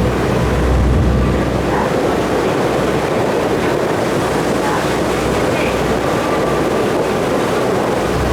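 Passenger ferry under way: a steady run of engine and rushing water noise, with a low rumble that swells and fades.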